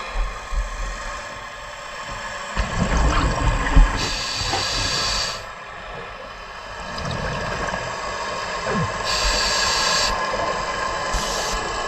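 Scuba diver breathing through a regulator underwater: a bubbling rumble of exhaled bubbles followed by a hissing inhalation, twice, over a steady faint hum.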